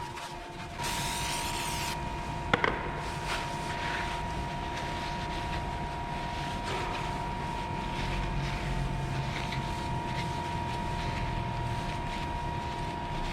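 Workshop machinery running with a steady whine, a short hiss about a second in and a sharp click a moment later.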